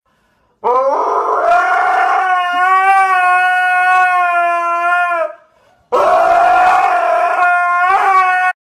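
Dog howling: two long howls, the first rising at its start, held steady for about four and a half seconds and falling away at the end, the second starting a moment later and cut off abruptly near the end.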